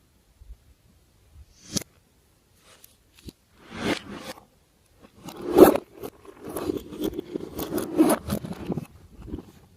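Glossy slime being worked by hand: a run of sticky clicks and crackles, sparse at first and growing dense and louder about five seconds in, then thinning out near the end.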